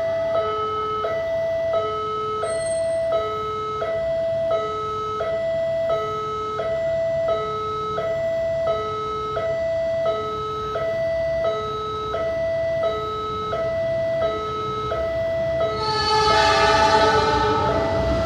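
Level-crossing warning alarm sounding: an electronic two-note ding-dong repeating steadily, about three cycles every two seconds, signalling that a train is due. About sixteen seconds in, the rumble and horn of the approaching diesel-hauled passenger train rise over it.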